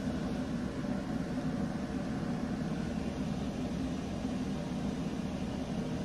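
Steady low hum with an even hiss of background noise, unchanging throughout, with no distinct sounds on top.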